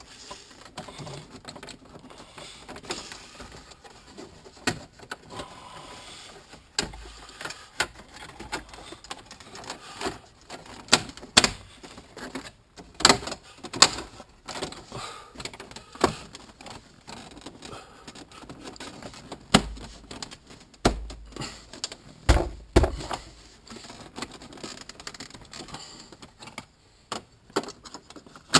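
Irregular clicks, knocks and plastic rattles of hands working the Dodge Viper's window switches and console trim down into place, with a few dull thumps.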